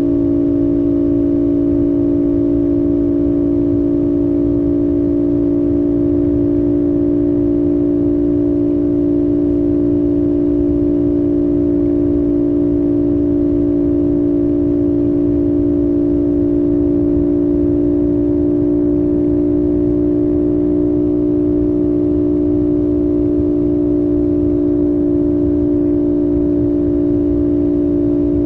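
CFMOTO 450SS parallel-twin engine held at a steady cruising rpm, a constant droning note with wind and road rumble underneath.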